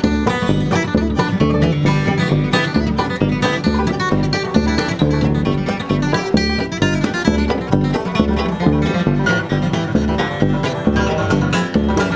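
Bluegrass band playing an instrumental passage: five-string banjo and acoustic guitar picking with a bowed fiddle, over an upright bass keeping a steady beat.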